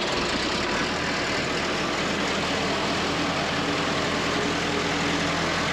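Diesel engine of a John Deere-powered Ingersoll Rand portable air compressor running at a steady idle.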